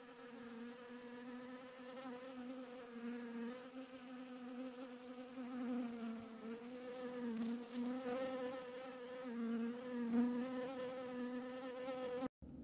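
Bee buzzing: a steady hum that wavers slightly in pitch and cuts off suddenly near the end.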